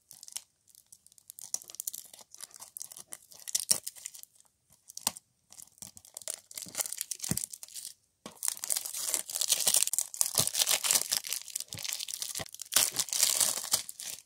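Clear plastic shrink-wrap being torn and peeled off a DVD case, crackling and crinkling in fits and starts, then crinkling more steadily from about eight seconds in.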